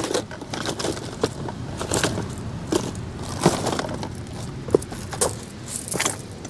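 Hands rummaging through fishing tackle in a box, with irregular clicks, knocks and rustling as items are moved about.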